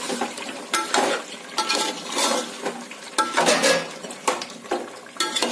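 Metal spoon stirring a pot of meat curry with water just added, scraping and knocking irregularly against the metal pot's sides, some knocks with a short ring.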